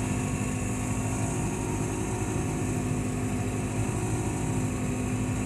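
Old tractor's engine running steadily, heard from inside the cab: an even drone with a fast, steady low pulsing.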